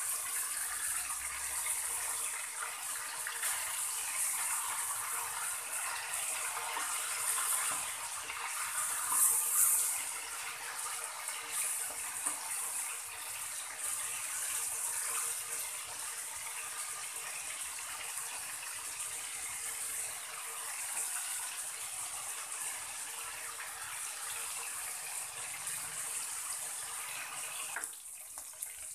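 Pork pieces frying in hot oil in a wok: a steady sizzle and spatter, louder for a few seconds about a third of the way in, then dropping off sharply near the end.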